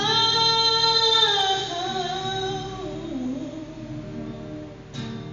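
A voice singing one long held note that slides slowly down in pitch over a few seconds and then fades.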